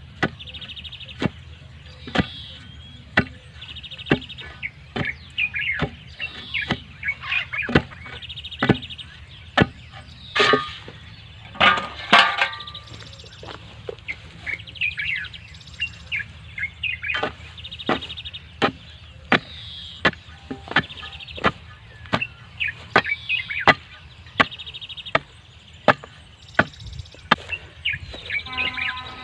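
Repeated sharp knocks, about one or two a second, as stones and soil are tamped into the hole around a wooden fence post, with a longer clatter about ten seconds in. Birds chirp between the knocks.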